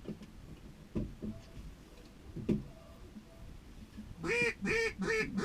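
A couple of dull knocks, then from about four seconds in a quick, regular run of loud duck quacks, about three a second.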